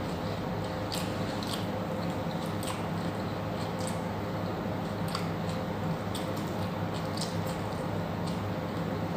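Close-up chewing and mouth sounds of someone eating a meal: wet, squishy chewing with small clicks at irregular intervals, over a steady low hum.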